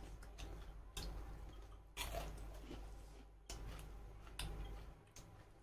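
Close-up chewing of food by people eating rice and smoked pork with their hands, with a few sharp mouth smacks about a second apart.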